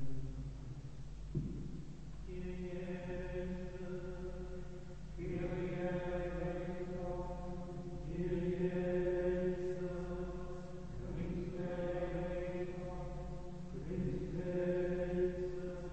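Carthusian monks chanting, their voices held on a near-steady reciting pitch in phrases about three seconds long.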